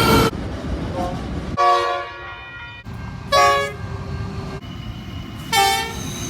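Locomotive air horns sounding short blasts, each a chord of several notes, three of them about a second and a half apart, over the rumble of a passing train. A louder blast cuts off just after the start.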